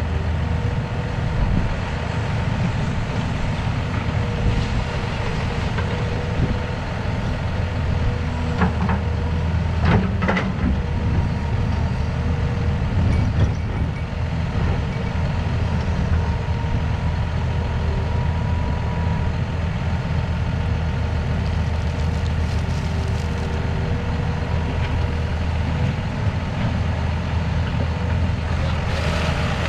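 Diesel engines of a John Deere tractor and an excavator running steadily, with a few knocks about a third of the way in as the excavator loads stone into the tractor's trailer.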